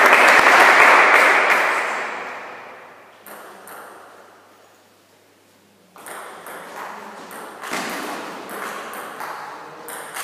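Table tennis rally in a hall: the celluloid ball clicks off the rubber paddles and the table, starting about six seconds in, at about two hits a second. Before it, a loud wash of noise fades away over the first two or three seconds.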